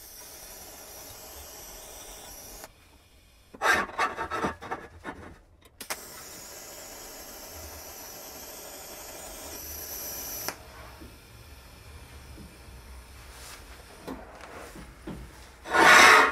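Steady hiss of a welding arc in two runs of a few seconds each, each starting and cutting off abruptly. Between the runs and again near the end come loud bouts of rough scraping.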